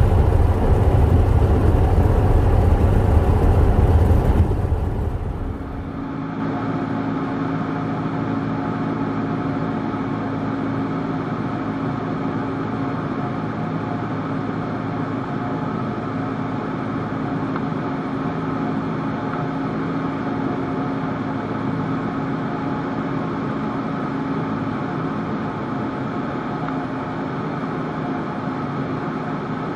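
Cessna 172's piston engine and propeller droning, heard inside the cockpit: a loud low rumble for about the first five seconds, then a quieter steady drone with a hum of several steady pitches, as the aircraft flies its approach.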